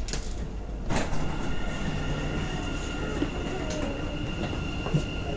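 Dubai Metro driverless train at a station platform: a steady low rumble, with a steady high whine setting in after a knock about a second in.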